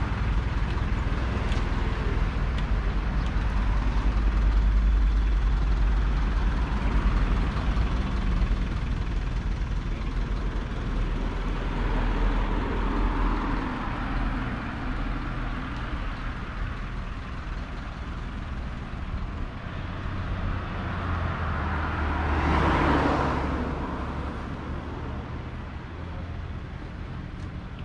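Street traffic: car engines running close by with a deep low rumble, and cars passing, the loudest going by about three quarters of the way through.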